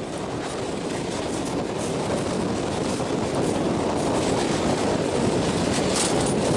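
Passenger train running on the rails, heard from an open coach door: a steady rushing rattle of wheels on track that slowly grows louder, with a few sharp clicks near the end.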